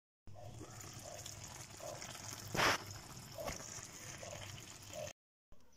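Pan of eggplant, pepper and tomato stew simmering, a soft steady bubbling hiss, with one sharp knock about two and a half seconds in and a smaller one a second later.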